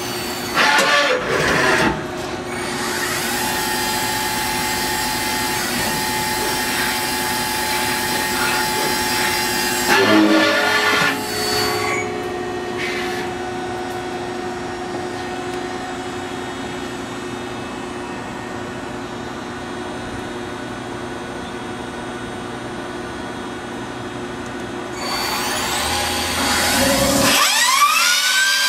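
Citizen M32 CNC Swiss-type lathe running at about 5,000 rpm on its spindle and live tools: a steady machine whine over the hiss of coolant spray. There are brief louder bursts about a second in and about ten seconds in. Near the end a whine rises and then holds as a spindle speeds up.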